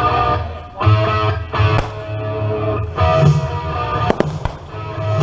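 A recorded pop-rock song with strummed guitar plays from a radio countdown broadcast.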